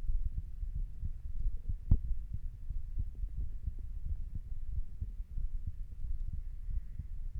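A person's heartbeat at rest, lying down, heard as repeated low thuds. A single sharp knock, the loudest sound, comes about two seconds in.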